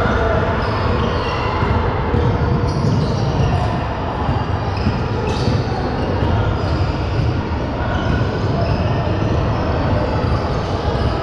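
Basketball game in a gym: a ball bouncing on the court amid a steady din of voices, with many short high squeaks.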